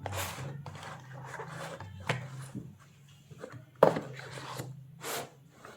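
Handling noise: irregular rubbing and rustling swishes with a few sharp knocks, the loudest about four seconds in, over a steady low hum.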